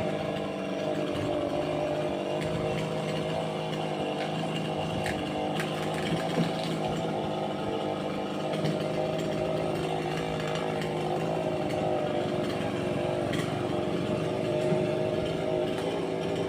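Chainsaw cutting through a banyan tree, its engine running steadily with only slight wavers in pitch.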